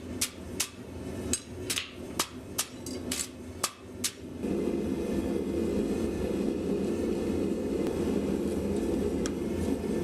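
A hammer striking steel on an anvil, about ten blows at two to three a second, ringing briefly. A little over four seconds in, the hammering stops and a steady low rushing noise from the forge runs on.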